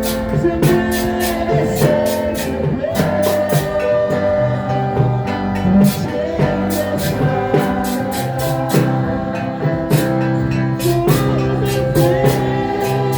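Music with a steady drum beat, guitar and a singing voice.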